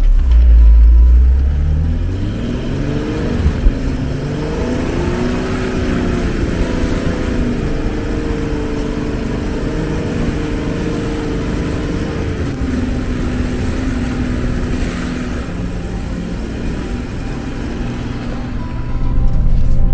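Jeep Wrangler JK's 3.6-litre V6 pulling through deep snow, its pitch climbing over the first few seconds and then holding steady, over the steady hiss of the tyres churning snow. A loud low rumble comes in the first two seconds.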